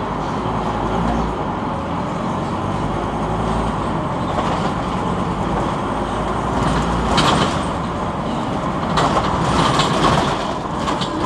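Cabin noise inside a Scania NewOmnicity city bus under way: a steady rumble of engine and road, with louder rushes of noise about seven seconds in and again around nine to ten seconds in.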